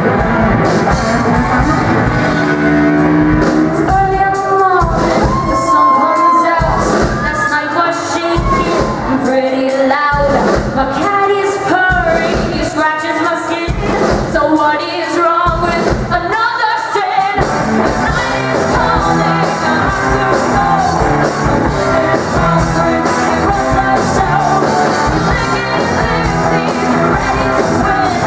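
Rock band playing a hard-rock song with a sung, partly shouted lead vocal over electric guitar and drums. The vocal lines bend and hold in pitch most clearly from about 4 to 17 seconds in, with the full band steady throughout.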